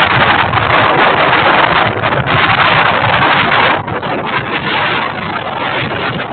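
Strong gusts of wind in a storm, rushing and buffeting the microphone in loud uneven surges that ease off a little after about four seconds.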